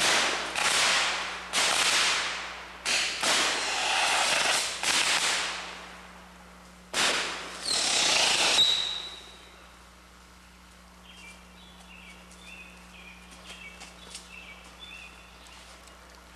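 Hand-held firework spraying sparks, firing a quick series of about seven loud hissing whooshes, each starting suddenly and fading, over the first nine seconds. Then faint birds chirping.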